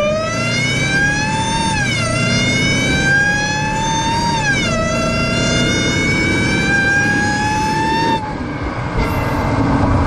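Dodge Charger Hellcat's supercharged 6.2-litre HEMI V8 with a JLT cold air intake, heard from the engine bay under hard acceleration. A whine climbs in pitch, drops back at upshifts about two seconds and nearly five seconds in, climbs again, and cuts off suddenly near the end as the throttle is lifted.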